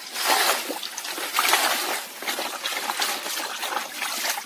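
Water splashing and trickling, swelling and fading in uneven bursts.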